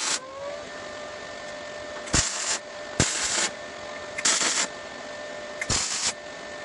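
A MIG welder laying short tack welds: four crackling bursts of about half a second each, each striking with a sharp click. A steady whine runs underneath between the tacks.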